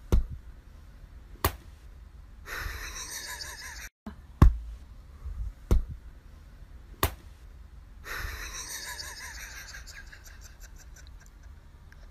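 Five sharp knocks or slaps, a second or more apart, and two stretches of rustling noise in between.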